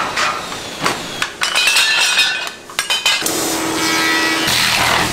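Metal pieces clinking and knocking sharply as gloved hands handle them. About three seconds in a workshop machine starts running with a steady hum that holds one tone, and it grows louder and noisier near the end.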